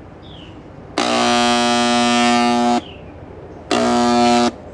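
Handheld electric paint spray gun's vibrating pump buzzing as the trigger is pulled twice, about two seconds and then just under a second, spraying stain while the gun is being primed and its flow tested.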